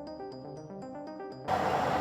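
Intro music of short repeating pitched notes. About three-quarters of the way through it cuts off suddenly into a louder, steady noise.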